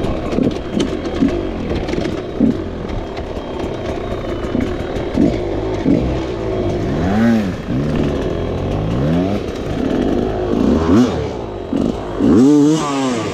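Dirt bike engine revving up and down in repeated short throttle bursts, with a hard, loud rev near the end.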